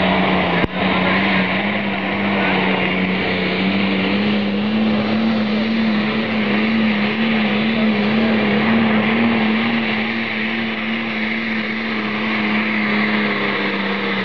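Diesel engine of a red International pulling tractor at full throttle, dragging a pulling sled. It makes a loud, steady drone whose pitch wavers slightly.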